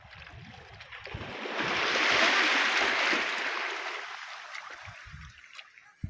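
A wave washing in over the rocky shore: a rush of surf that swells up about a second in and fades away over the next few seconds.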